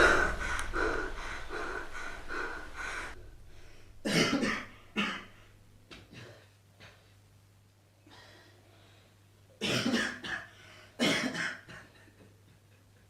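A person coughing in two pairs of short coughs, about four seconds in and again about ten seconds in. Music dies away over the first three seconds.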